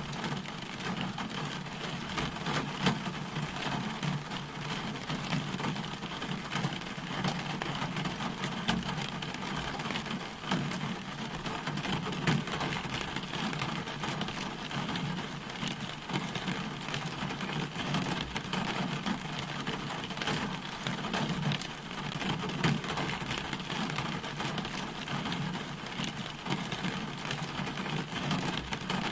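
Steady rain falling, with many separate drop impacts standing out from the even hiss.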